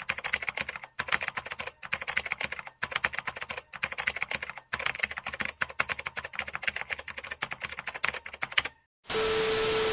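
Typing sound effect: rapid keyboard clicks in runs of about a second with short breaks between them. Near the end the clicks stop and a burst of hiss with a steady low tone plays for about a second, then cuts off.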